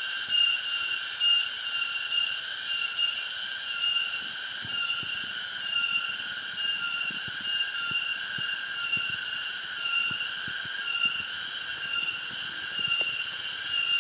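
Cicadas singing: a continuous, shrill, high-pitched buzz that pulses slightly.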